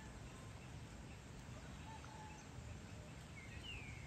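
Faint outdoor evening ambience: a low steady rumble with a few short bird calls, the clearest a quick falling chirp near the end.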